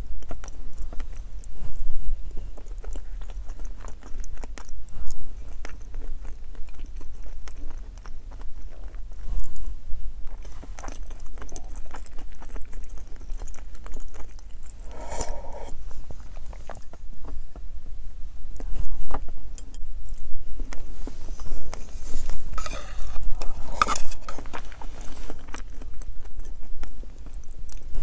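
Close-up chewing and biting: a person eating hard-boiled egg with chopsticks, with many small, irregular mouth clicks. A few louder noises come about halfway through and again near the end.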